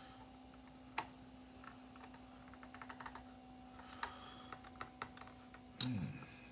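Faint, scattered clicks and taps of small hard plastic kit parts being handled and fitted together, over a steady low hum.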